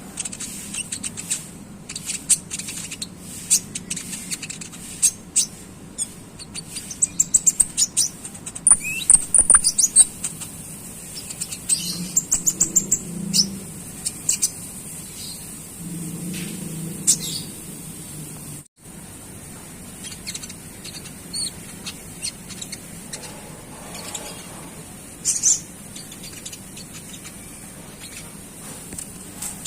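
Konin songbird chattering: quick, sharp high-pitched chirps and clicks with bursts of rapid twittering trills, the 'ngeriwik' call used as a lure to teach a young bird to sing.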